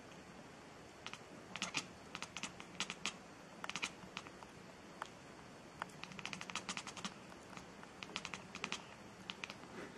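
Irregular clusters of light, sharp clicks and taps, several a second in bursts, with short gaps between them.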